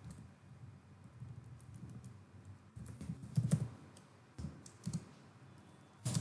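Computer keyboard being typed on: scattered, irregular keystrokes, with a louder flurry of keys about three and a half seconds in and a sharp click at the end.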